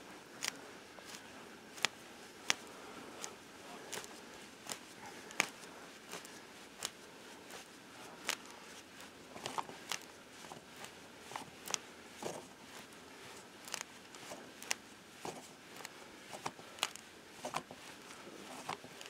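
A screw-type ice anchor being twisted by hand into the ice at the tent's base, giving faint, irregular crunching clicks, roughly one or two a second, as the threads bite in.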